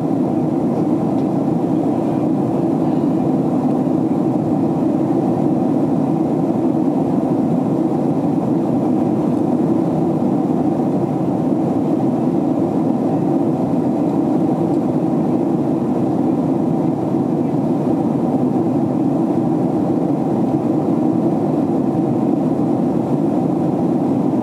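Boeing 767 cabin noise in flight, heard from a window seat: the steady low drone and rush of the engines and airflow, unchanging throughout.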